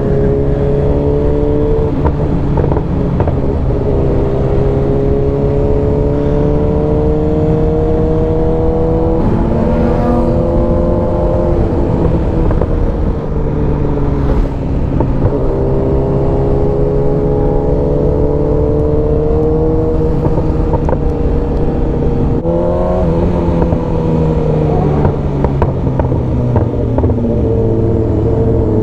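Superbike engine running under way. Its pitch climbs slowly for several seconds, then drops back sharply about three times as the rider shifts or rolls off the throttle, over steady wind rush on the microphone.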